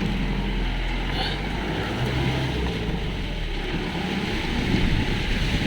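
Mahindra Thar jeep's engine running steadily, with the rumble of the ride, as it drives downhill on a muddy, rutted off-road track.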